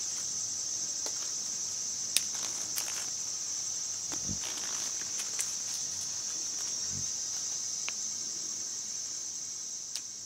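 Steady, unbroken high-pitched trilling of crickets on a warm night. A few sharp clicks stand out over it, the loudest about two seconds in and another near the end.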